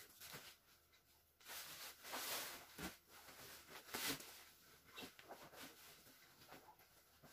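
Soft rustling and swishing of a white cotton pillowcase being handled and a pillow pushed into it, loudest about two seconds in and again in a short burst around four seconds.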